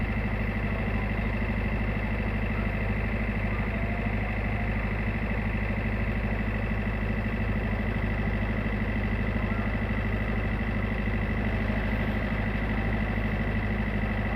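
Tugboat's diesel engine running at a steady, even pace, with a constant low drone and a high whine over it.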